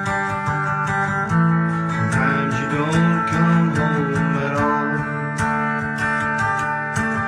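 Acoustic guitar strummed in a steady country-folk rhythm, playing an instrumental passage without singing.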